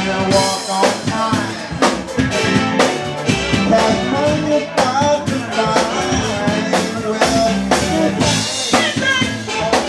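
Soul band playing: a drum kit keeps a steady beat with a strong hit about once a second, under bass and a bending melody line.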